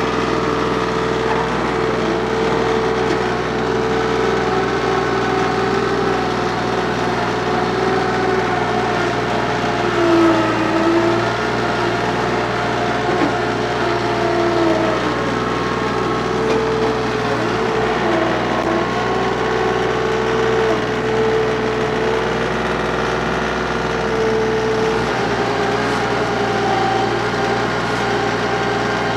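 TYM compact tractor's diesel engine running steadily at working throttle while grading. Its pitch drops briefly about ten seconds in and again near eighteen seconds.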